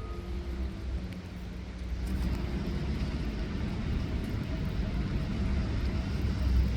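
Steady low rumble of road traffic, growing louder about two seconds in as a vehicle passes.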